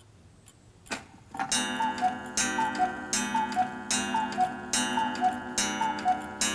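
Cuckoo clock calling: a click as the strike trips, then a run of two-note falling "cuckoo" calls from its bellows-blown pipes, about one call every 0.8 s.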